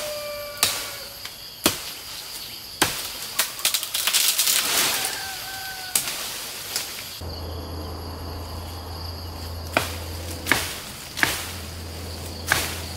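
Machete chopping into a lychee branch, sharp blows about a second apart. Around three to five seconds in the wood cracks and splinters as the branch gives way, and the chopping blows go on afterwards.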